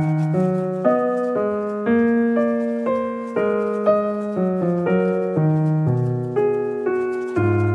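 Background piano music: a gentle melody with notes changing about twice a second.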